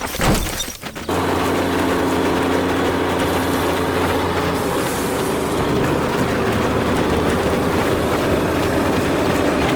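Heavy diesel machinery running steadily under load. It cuts in abruptly about a second in, after a brief loud burst of a transition.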